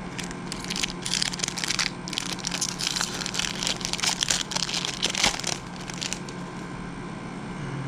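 Foil wrapper of a Topps football-card pack being torn open and crinkled by hand: a run of crackling that stops about six seconds in.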